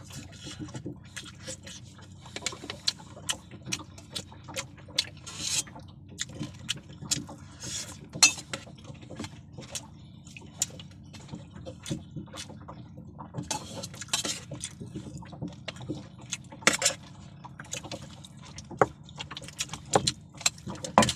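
Chopsticks and a spoon clicking and knocking against bowls and dishes during a meal, in irregular sharp taps, over a steady low hum.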